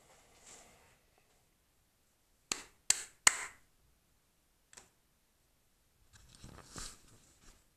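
Three sharp clicks in quick succession, a fainter click about a second and a half later, then a couple of seconds of soft rustling from the camera being handled.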